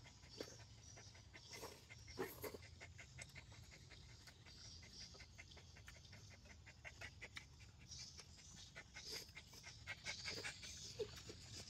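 A dog panting faintly in quick, even breaths, with a few soft clicks and taps.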